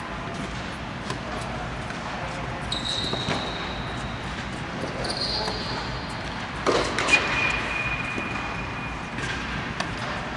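Tennis balls bouncing and struck by rackets on an indoor hard court, a scatter of sharp knocks with a louder cluster about two-thirds of the way in, over a steady background rush. A few thin high squeaks sound in between.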